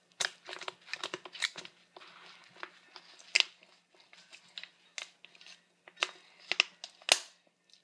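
Irregular clicks and crackles of a plastic water bottle wrapped in a soapy cloth being handled, with a soft hiss about two seconds in.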